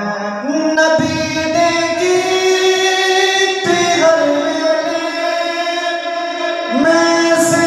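A man singing a devotional naat into a microphone, holding long, drawn-out notes that step up and down in pitch.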